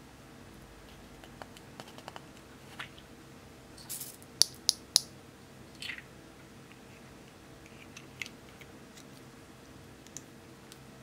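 Small plastic jar of orange fruit-slice sprinkles handled and tipped out over slime: scattered light clicks, then three sharp plastic clicks in quick succession about halfway through, followed by a brief rustle.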